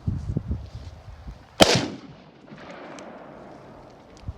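A single gunshot about a second and a half in, with a short echo trailing after it; a few low bumps come before it.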